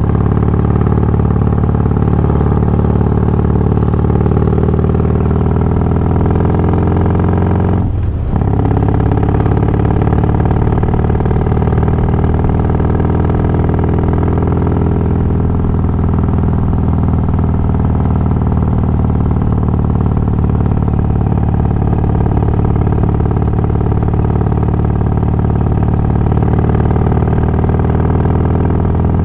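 Harley-Davidson Twin Cam 88 V-twin fitted with Feuling 525 cams, running steadily under way, with a brief dip in the engine note about eight seconds in. The rider finds the engine sound magnified with the new cams.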